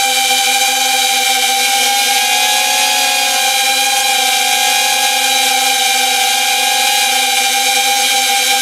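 FPV quadcopter's brushless motors and propellers whining at a steady pitch, picked up by the onboard camera's built-in microphone.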